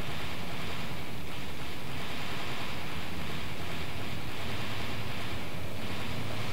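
Steady rushing noise, like wind or surf, with a low hum underneath; its texture shifts slightly every second or two.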